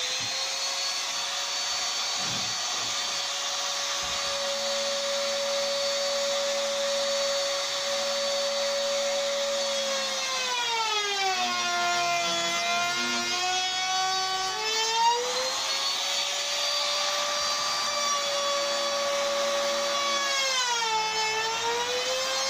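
Makita trim router running with a steady high whine, its pitch sagging for a few seconds about ten seconds in and again briefly near the end as the finger-pull cutter bites into the beech door stile, then recovering.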